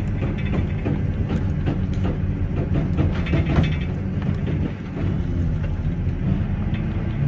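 Fishing boat's engine running steadily with a low hum, overlaid by scattered clicks and taps of tackle as the hairtail rig is handled at the gunwale.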